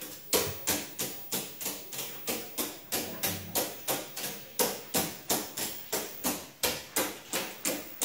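Caique parrot hopping up and down on a hard surface, its landings making quick, evenly spaced taps, about three a second.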